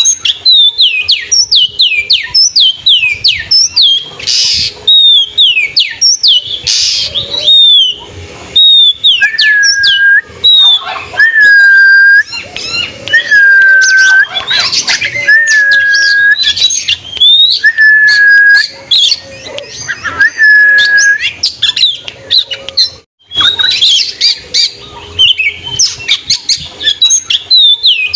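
Caged oriental magpie-robin singing. It starts with fast runs of sharp falling notes, then gives a string of clear, even whistles about two seconds apart with harsher chatter between them. After a brief break the quick falling notes return.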